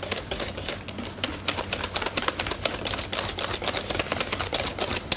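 A kitchen utensil clicking and scraping against a stainless steel mixing bowl, rapid clicks several times a second, as whipped cream is mixed into a vanilla custard base.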